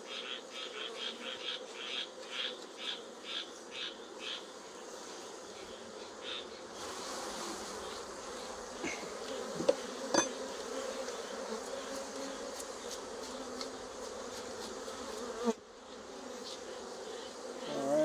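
A swarm of honeybees buzzing steadily in a low hum around an open hive. In the first few seconds there is a quick run of soft strokes, about three a second, as bees are brushed off a honeycomb frame with a bee brush. A couple of sharp knocks come about ten seconds in.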